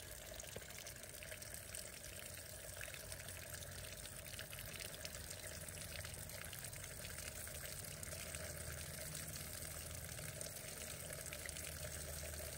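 Water from an outdoor tap pouring in a steady stream and splashing into the shallow water of an inflatable pool.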